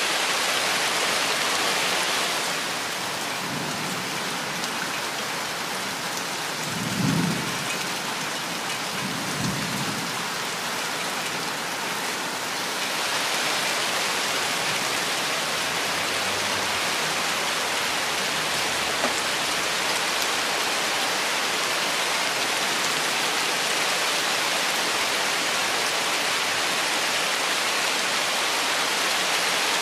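Steady rain falling on forest foliage, with two short, low rumbles of thunder about seven and nine and a half seconds in.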